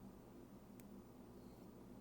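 Near silence: a steady low hum of room tone, with one faint tick a little under a second in, from tweezers on small watch parts.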